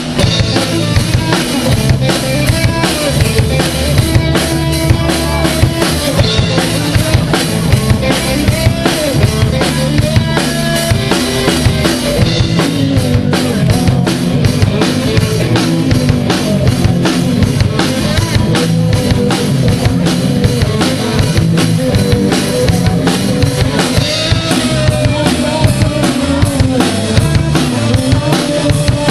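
A rock band playing live: a drum kit keeps a steady beat with bass drum, snare and rimshots, under low bass notes and a wavering melodic line.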